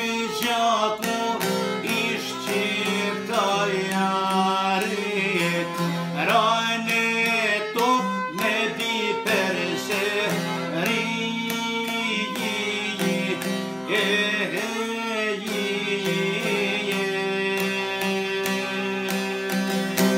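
A man singing an Albanian folk song, accompanied by a rapidly plucked long-necked lute and a bowed violin.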